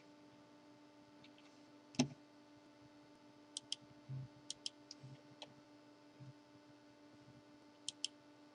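Quiet room tone with a steady low hum and scattered faint clicks, several in quick pairs, with a few soft low knocks in between.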